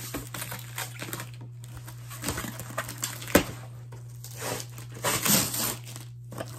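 A cardboard shipping box being opened by hand: irregular rustling, crinkling and tearing of cardboard and packing, with a sharp crack a little after three seconds and a longer rustle around five seconds.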